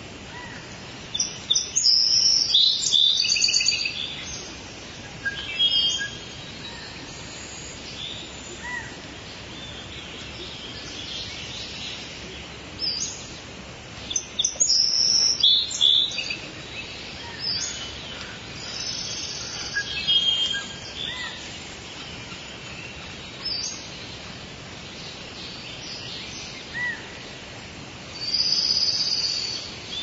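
Rainforest ambience: many birds calling and chirping over a steady background hiss, with the loudest, busiest bursts of calls near the start, around the middle and near the end.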